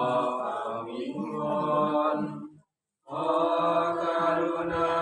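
A group of voices chanting a slow prayer together in long held notes, a funeral chant in a Catholic rite for the dead. The sound cuts out completely for about half a second just past halfway, then resumes.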